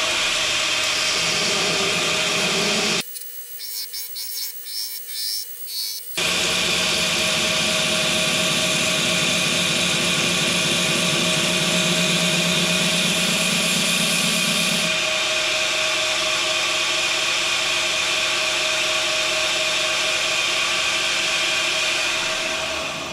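Belt grinder running with a coarse 40-grit belt as a knife handle is pressed against it and shaped, a steady loud grinding over the motor's hum. About three seconds in the grinding drops away for roughly three seconds, then resumes.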